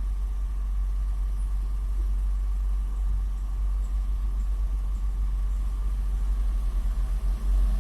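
Heavy diesel engine of construction machinery running steadily at a low rumble, with the level fluttering near the end.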